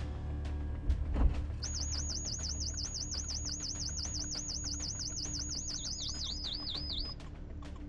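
A high electronic warbling tone, like an alarm siren, wavering about six times a second for several seconds. Near the end a lower, slower warble joins it. Under it runs background music with a steady beat, and there is a short thump about a second in.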